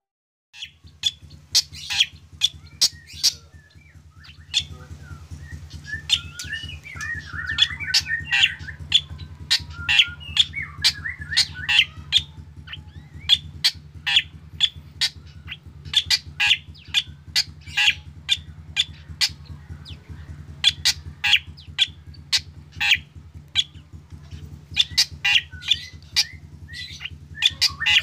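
Black drongo singing: a fast string of short, sharp notes, several a second, with a warbling, chattering passage a few seconds in. A steady low hum runs underneath.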